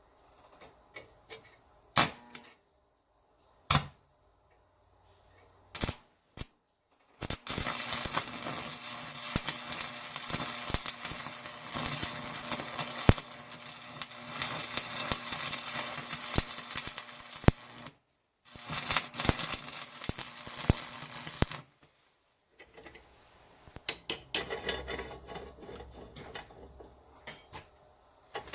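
Electric arc welder crackling and spitting as it welds steel: a few short tack strikes, then a long weld of about ten seconds, a pause, and a second bead of about three seconds. Weaker crackling near the end.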